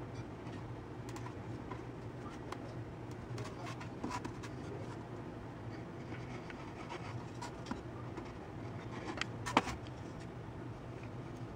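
Quiet handling noises of a caulk gun and a plywood form: scattered small clicks and scraping, with one sharp click about nine and a half seconds in, over a steady low hum.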